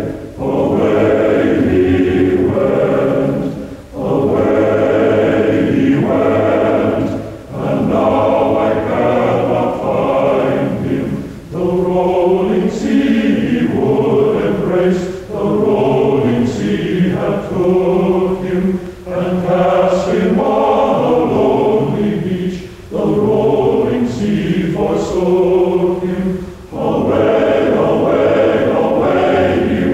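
A choir singing the film's score in slow, long-held phrases, with short breaks between phrases every few seconds.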